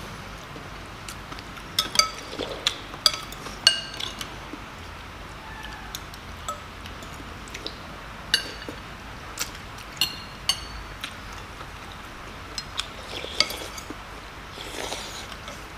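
Metal spoons and forks clinking against ceramic soup bowls as people eat, in scattered sharp clinks, with a short slurp near the end.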